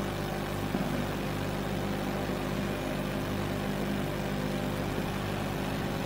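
Steady background hum with several constant low tones and no clear events: the room tone of a hall.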